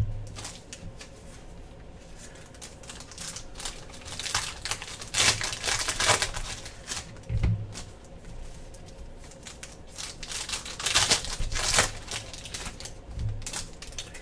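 Foil wrappers of Panini Prizm football card packs crinkling while the trading cards are handled and dealt into stacks: a run of quick taps and rustles, with louder bursts about five seconds in and again around eleven seconds.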